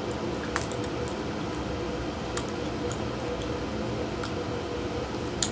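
Boiled crawfish being cracked and peeled by hand: a few sharp shell clicks and soft wet squishes over a steady background hum.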